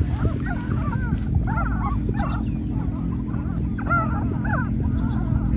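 Newborn puppies squealing: a rapid run of short, high squeaks that bend up and down in pitch, over a steady low rumble.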